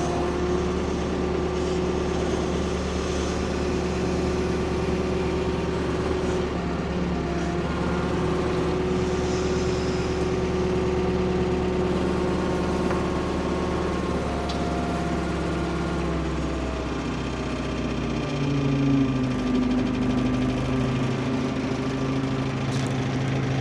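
Ford P-42 excavator engine running steadily. About seventeen seconds in, its note drops to a lower pitch.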